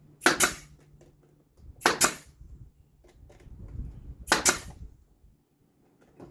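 Brad nailer firing 1-inch brad nails into wood three times, about two seconds apart, each shot a sharp double snap.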